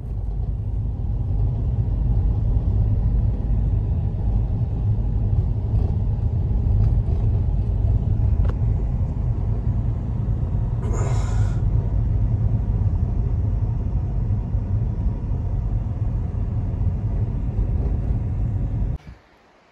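A loud, steady low rumble with a brief hissing sound about eleven seconds in; the rumble stops abruptly near the end.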